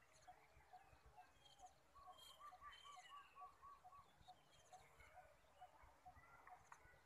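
Faint outdoor birdsong. One bird repeats a short note about twice a second, another gives a quick run of about eight whistled notes between two and four seconds in, and high chirps are scattered among them.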